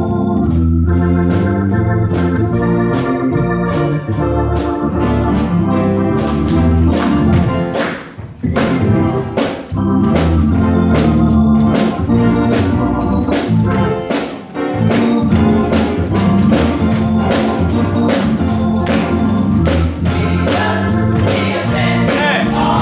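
Gospel church band playing an organ intro over a steady drum beat, before the choir comes in; the playing breaks off briefly twice.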